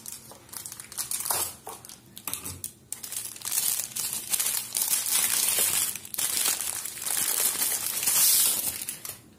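Plastic packing wrap crinkling in irregular bursts as it is pulled open by hand, loudest near the end.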